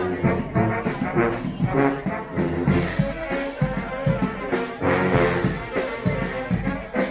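A brass street band playing live: horns carrying a tune over a regular pulsing beat.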